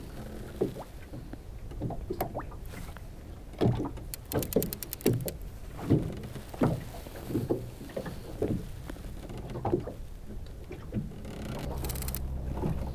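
Water slapping and knocking against the hull of a small fishing boat, with a quick run of fine clicks about four seconds in and again near the end.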